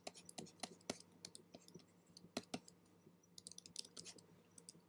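Faint, irregular clicks and taps from computer input devices such as keyboard keys and a pointer or pen, over a faint steady low hum.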